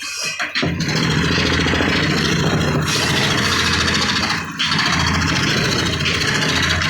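Electric power tool motor running steadily while cutting wood, easing off briefly about four and a half seconds in before running on.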